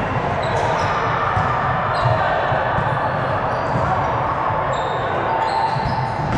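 Gym noise during an indoor volleyball game: a steady din with several short high-pitched squeaks, typical of sneakers on a court floor, and the thud of the ball being hit or bounced.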